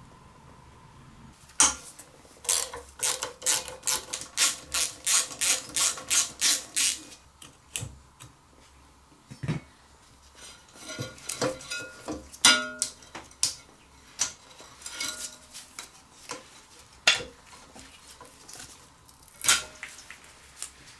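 Hand tools and small metal parts clicking and clinking as a new ignition kit and condenser are fitted to the mower engine. There is a quick run of about fifteen clicks, roughly three a second, starting about two seconds in, then scattered clinks and a few short ringing metal taps.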